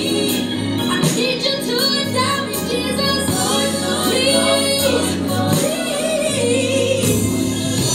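Gospel song with female singing over sustained bass notes and a light beat.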